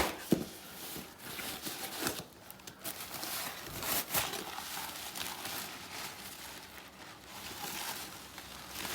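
Handling noise from a used car ashtray: irregular rustling and light clicks, with a sharp click at the start and another just after.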